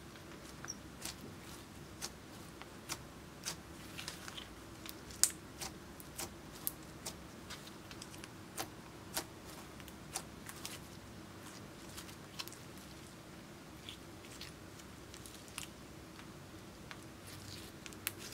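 Slime being stretched, folded and kneaded by hand, making irregular sticky clicks and pops, the loudest about five seconds in, over a faint steady hum.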